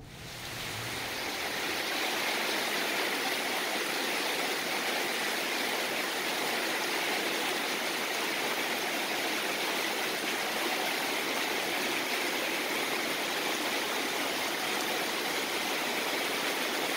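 Heavy rain falling in a steady downpour, a dense, even hiss that swells up over the first couple of seconds and then holds level.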